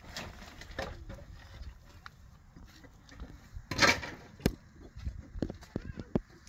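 A loud scrape or rustle about four seconds in, followed by a quick run of five or six sharp knocks and clicks in under two seconds.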